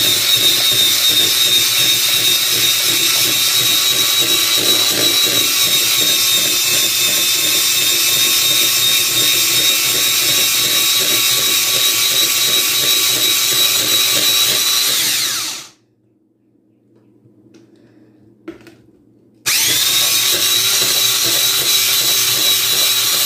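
Electric stick blender running steadily with a high motor whine as it mixes muffin batter in a plastic bowl. It cuts off about two-thirds of the way through, a few faint clicks follow in the pause, and it starts again near the end.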